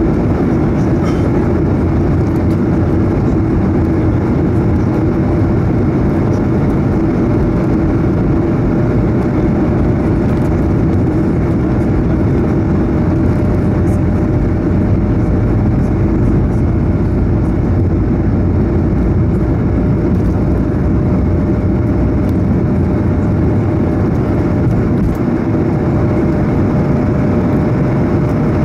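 Airbus A220-100 (Bombardier CS100) takeoff roll heard from a cabin seat over the wing: its Pratt & Whitney PW1500G geared turbofans at takeoff thrust give a loud, steady rush and rumble, with a steady hum running through it.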